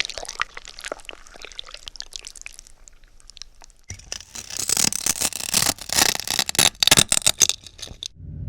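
A horror sound effect of irregular clicking and crackling, sparse at first, then denser and louder about four seconds in, stopping abruptly near the end.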